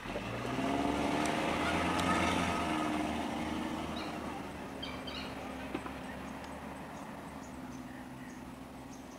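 Minivan engine pulling away, loudest about two seconds in, then slowly fading as it drives off, with a steady engine note running underneath. A few short high chirps come about five seconds in.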